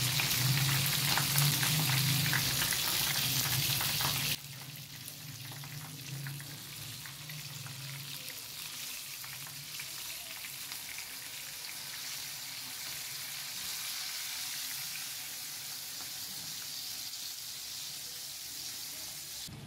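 Chicken shashlik skewers frying in hot oil in a pan, sizzling and crackling. About four seconds in the sizzle drops abruptly to a quieter, steady hiss.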